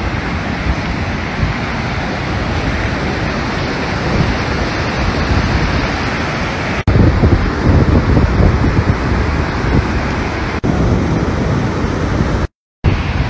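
Wind buffeting a phone microphone over rushing surf, a steady roar with gusty low rumbling. It cuts out sharply twice, about seven and ten and a half seconds in, and goes silent briefly near the end.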